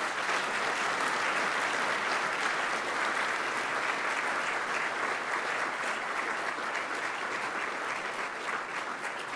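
Large audience applauding steadily to welcome a speaker, a sustained round of clapping that eases off slightly near the end.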